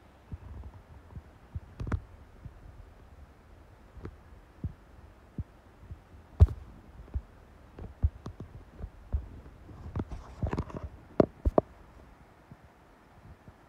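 Irregular low thumps and sharp clicks on the microphone, over a faint low rumble, with a denser cluster around ten to eleven seconds in.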